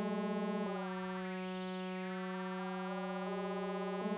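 Sustained additive-synth tone from Arturia Pigments' Harmonic engine, a stack of sine partials over a steady low note. Groups of upper partials step and slide in and out as the cluster position is moved. About a second in, one group glides up to a high peak and back down over about a second and a half.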